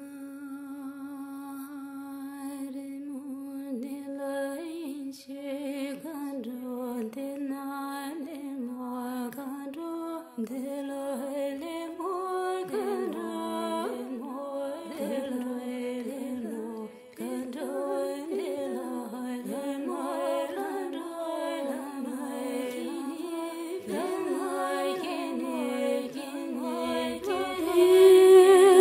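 Slow background music: a single wordless melody line gliding from note to note, growing louder near the end.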